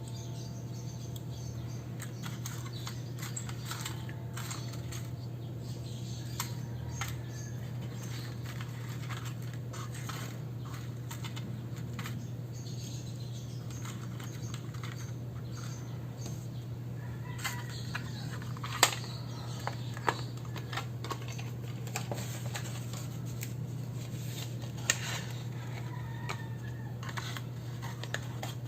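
Quiet desk sounds of journaling: scattered light clicks and scratches of pen and paper handling, with a few sharper clicks in the second half, over a steady low hum.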